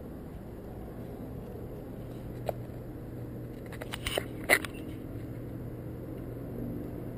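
Puppies scuffling and nosing right beside the camera: a few short sharp knocks and scratches, the loudest about halfway through, over a steady low hum.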